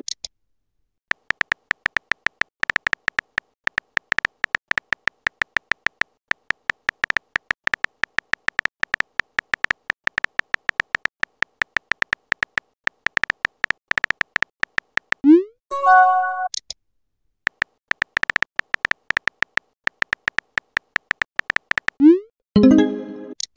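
Texting-app keyboard sound effects: rapid, irregular short electronic ticks at one steady pitch as a message is typed out. They are broken twice by the app's message-sent sound, a quick rising pop followed by a short chime, about fifteen seconds in and again near the end.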